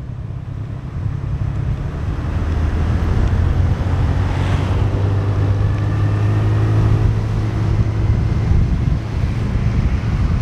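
Motorbike engine running under heavy wind rush on the microphone while riding along a road. The noise builds over the first few seconds as the bike gathers speed, and the engine's low hum climbs a little about halfway through.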